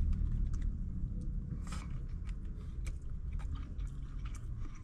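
A person chewing a mouthful of rice sprinkled with sesame salt, with many small wet mouth clicks, over a steady low hum.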